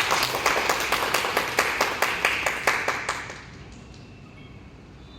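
Audience applauding, with many hands clapping, the applause dying away about three seconds in.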